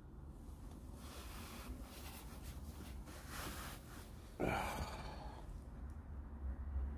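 A man breathing out heavily a few times, then a louder sigh about four and a half seconds in. Near the end a low engine rumble builds as a car pulls up outside.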